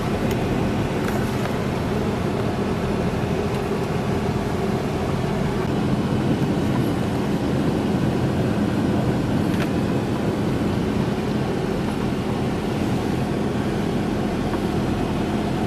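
Steady engine and road noise heard from inside a moving car's cabin, with a low hum under it. There is one faint click about ten seconds in.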